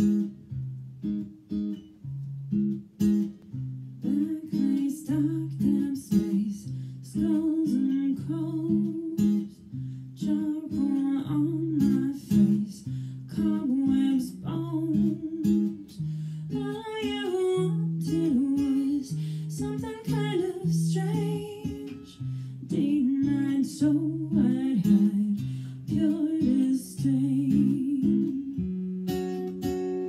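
Acoustic guitar playing a waltz in picked notes. About halfway through, a woman's singing voice comes in over it.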